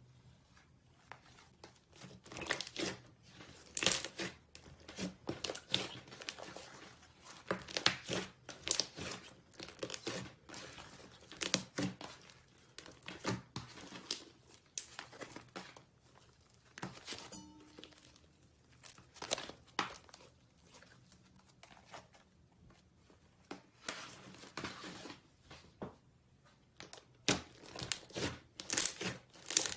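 Slime being squeezed and stretched by hand, giving irregular crackling and popping clicks in clusters.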